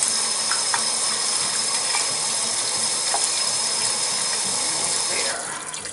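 Water running steadily from a Delta kitchen faucet into the sink, then fading away near the end as the cold-water shutoff valve under the sink is closed.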